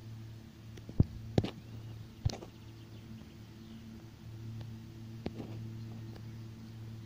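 Steady hum of a distant tractor engine running, fading a little around the middle and swelling again, with a few sharp clicks in the first few seconds and one more past five seconds.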